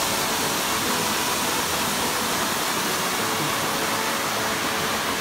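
Small waterfall cascading over rocks into a pool: a steady rush of falling water at an even level.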